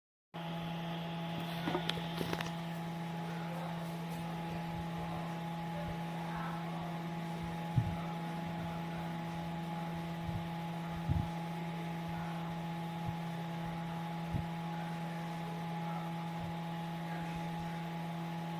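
LED ceiling fan's motor running with a steady electrical hum of several fixed tones, with a few light clicks scattered through it.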